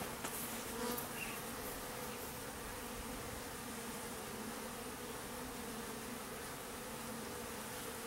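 Honey bees buzzing as they fly in and out of a hive entrance: a steady hum of many busy bees.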